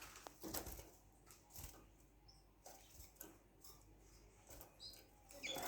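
Near silence with a few faint, brief high chirps from small caged finches and scattered light clicks.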